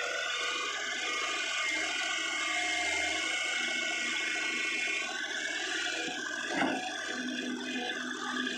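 Kobelco hydraulic excavator working, a steady mechanical whine with several held tones, and a single knock about six and a half seconds in.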